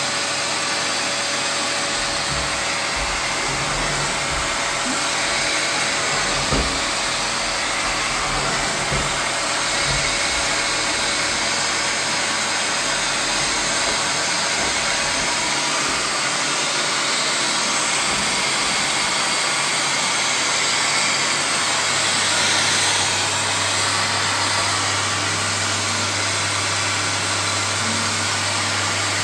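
An electric motor runs steadily throughout with an even rushing noise and a faint steady whine, not changing under load. A low hum joins about three-quarters of the way through.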